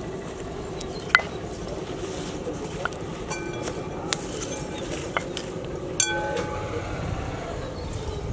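Glass bangles clinking, with light knocks of a wooden rolling pin and hands on a stone slab as puri dough is rolled out. The clinks come now and then, about once a second, some with a short ring.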